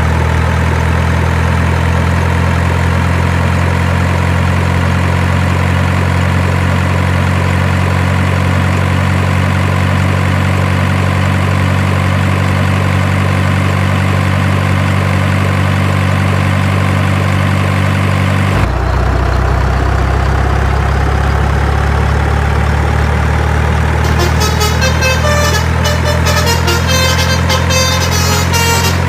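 Steady, low truck-engine drone that shifts in tone about two-thirds of the way through; near the end a rhythmic, music-like pattern of higher tones joins in.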